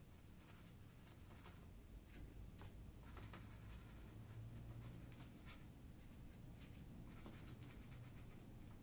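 Faint dabbing and scratching of a watercolour brush on paper: many short, soft strokes over a low steady hum.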